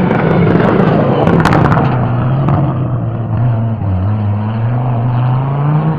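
Rally car engine running hard as the car passes close by, with a sharp crack about one and a half seconds in. The engine note then drops and climbs again near the end as it accelerates.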